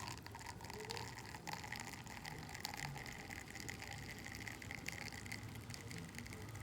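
Espresso trickling from a spring-lever espresso machine's double portafilter into two cups, a faint steady liquid sound as the spring pushes the brew water through the coffee.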